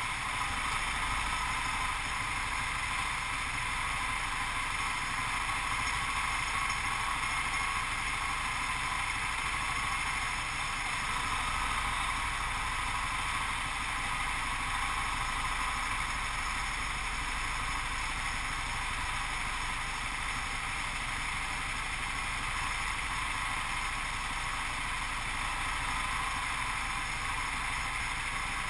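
Go-kart engine running with a steady, unbroken drone and hiss, holding nearly the same level and pitch throughout.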